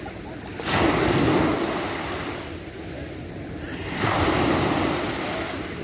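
Small waves breaking on a sandy beach, twice: each comes in with a sudden rush about a second in and again about four seconds in, then fades as the water washes up the sand.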